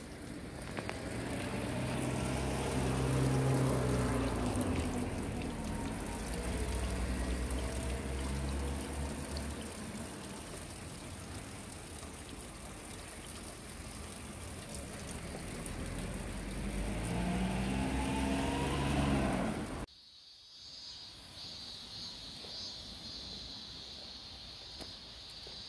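A motor vehicle's engine going past: a low engine hum swells and fades over the first few seconds, and a second vehicle rises in pitch as it approaches later on. About two-thirds of the way through the sound cuts off abruptly to a quieter background with a faint high hiss.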